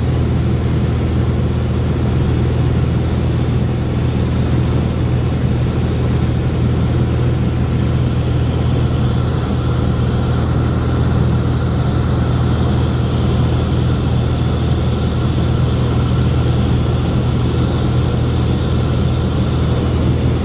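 Small propeller plane's engine and propeller running steadily in flight, heard from inside the cabin: a constant low hum that doesn't change in pitch or level.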